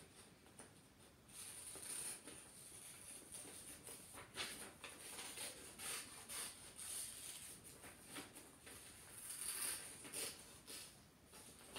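Scissors cutting through coloured paper: faint, irregular snips with paper rustling between them.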